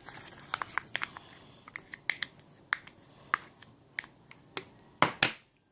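Sticky shampoo-and-salt slime being scooped out and handled, giving irregular small wet clicks and smacks, with two louder smacks about five seconds in.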